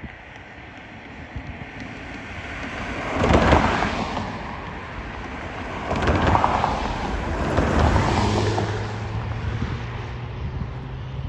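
A distant diesel freight train approaching, heard under wind buffeting the microphone, with two loud swells of sound about three and six seconds in and a low steady hum building near the end.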